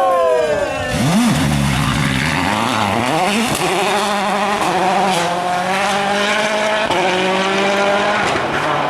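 A World Rally Car's turbocharged engine at high revs. The pitch falls as the car passes, there is a sharp rev blip about a second in, then the note climbs and holds high.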